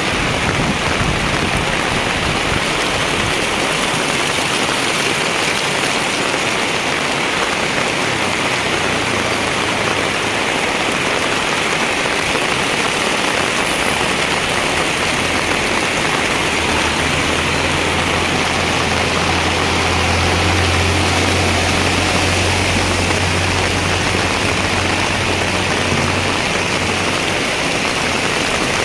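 Heavy rain pouring steadily as an even hiss. A low steady hum joins a little past halfway and fades out near the end.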